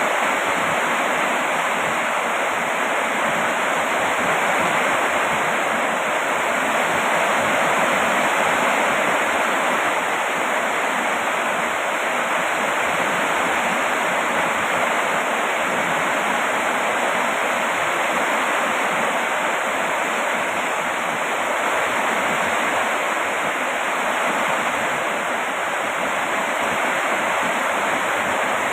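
Steady rain falling, an even, unchanging hiss with no single drops, thunder or gusts standing out.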